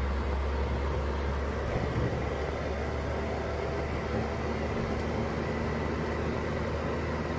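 Toyota Dyna 250 truck with its 14B 3.7-litre diesel engine running steadily on the move, heard from inside the cab with road noise. The sound is a deep, even drone that holds steady throughout.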